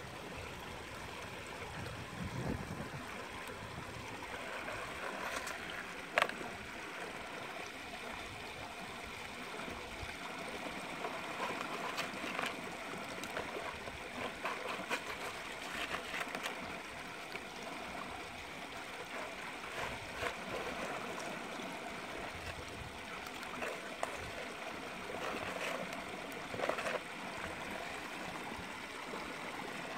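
Shallow stream running and trickling, a steady rush of water with a few light clicks scattered through, the sharpest about six seconds in.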